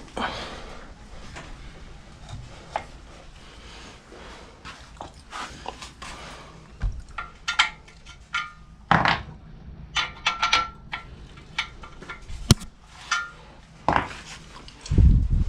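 Metal clutch parts and hand tools clinking and knocking while a clutch and pressure plate are fitted to a flywheel, with a few short ringing clinks and one sharp loud click about two-thirds of the way through. A loud low rumbling noise starts near the end.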